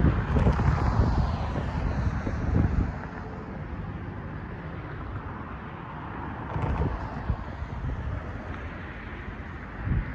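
Road traffic passing over the crossing with wind buffeting the microphone; the gusts are heaviest in the first few seconds and again right at the end.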